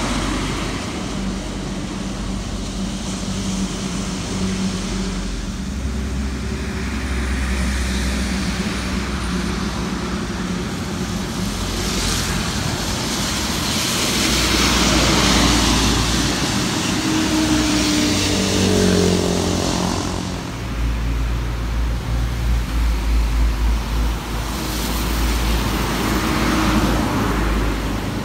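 Traffic on a wet highway: passenger coaches and trucks going by, their diesel engines running under a steady hiss of tyres on the wet road. The sound swells as each vehicle passes close, loudest about halfway through and again near the end.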